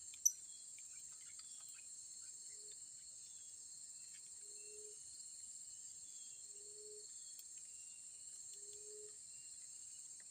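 Steady high-pitched insect chorus, with a short low hooting note repeating about every two seconds and one sharp click near the start.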